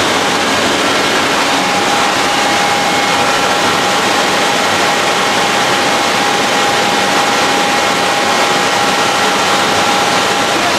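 Steady loud rush of circulating water in a koi tank, with a constant mid-pitched hum running through it.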